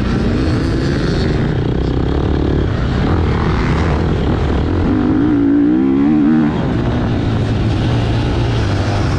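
Motocross motorcycle engines running loud and steady, with one engine note wavering up and down for about a second and a half just past the middle.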